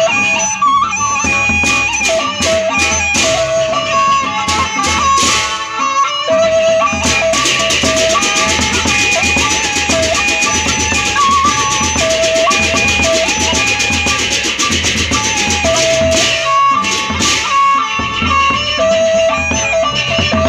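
Lombok gendang beleq ensemble playing: a bamboo suling flute melody over steady beats of the big barrel drums. Massed hand cymbals clash densely from about a third of the way in until about three quarters through, then thin out.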